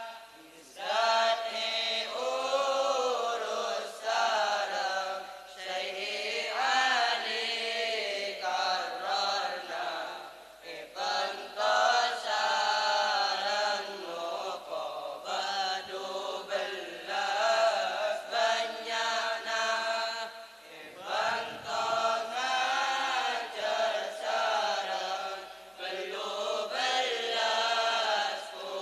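A group of boys chanting a Madurese syi'ir (Islamic devotional verse) together, line by line, with short breaks between lines about every five seconds.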